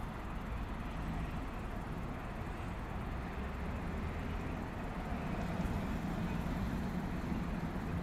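Wind blowing through the trees: a steady rushing noise with a deep rumble of wind on the microphone, growing a little louder about five seconds in.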